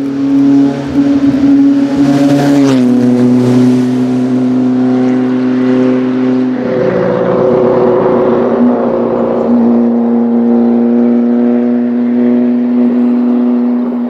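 Maserati Tipo 61 'Birdcage' four-cylinder racing engine running loud at fairly steady revs. The pitch dips slightly about three seconds in, and the note turns rougher from about seven seconds in.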